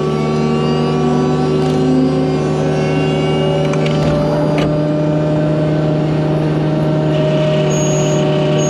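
Excavator-mounted forestry mulcher running at a steady speed, the diesel engine and hydraulically driven drum humming evenly, with two sharp knocks about halfway through.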